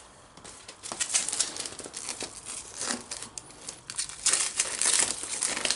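Plastic bags and newspaper crinkling and rustling as hands press and adjust them inside a cardboard box. It starts about a second in as a run of short crackles and is busiest near the end.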